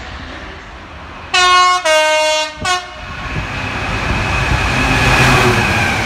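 Train horn sounding three notes, a higher one, a lower one, then a short higher blip. It is followed by the rumble of the train drawing near, growing steadily louder, with a faint high whine over it.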